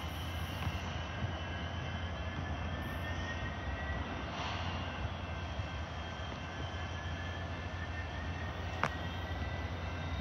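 Diesel locomotive engine running in a switching yard: a steady low rumble with no change in pace. There is a single sharp click about nine seconds in.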